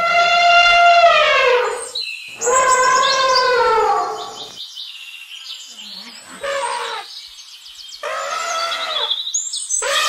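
Elephant trumpeting: a series of about five loud, brassy trumpet calls, each a second or two long, sliding down in pitch at the end, with short gaps between them.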